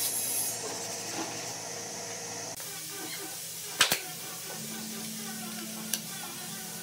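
Pneumatic nail gun firing nails into wooden door-frame trim: a sharp double shot about four seconds in, then a single shot near six seconds, over a steady hiss.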